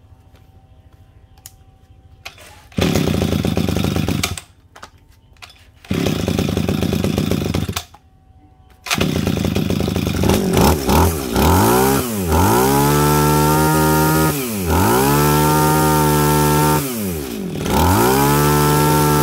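Shindaiwa S23 two-stroke pole-saw engine being pull-started: it fires briefly twice, then catches about nine seconds in and keeps running. It is revved up and let fall back several times, dropping low each time the throttle is eased off. The idle is set a little low, which the owner means to turn up so it runs evenly.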